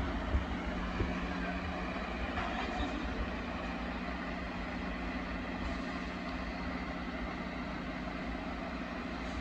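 Heavy-haulage trucks' diesel engines, a MAN ballast tractor among them, running steadily with a constant low hum.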